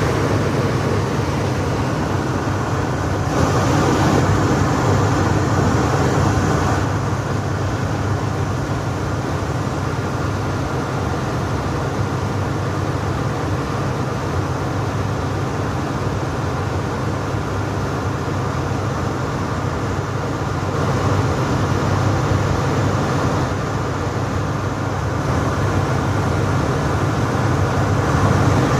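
Gas-engine generator running steadily, a constant low hum with mechanical noise over it. It gets a little louder for a few seconds about four seconds in, and again near the end.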